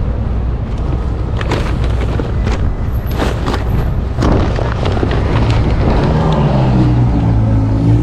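Steady low street rumble with scattered rustling and knocks, likely paper take-out bags being packed into an insulated delivery bag. In the second half a vehicle engine's hum rises and dips in pitch as it passes.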